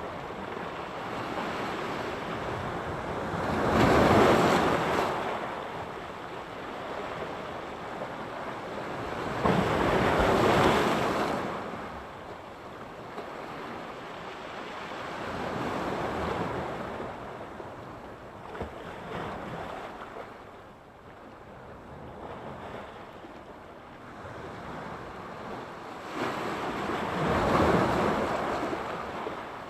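Sea surf: waves breaking on the shore one after another. There are four main surges, each rising to a rush of water and then falling away, with a quieter lull between the third and the last.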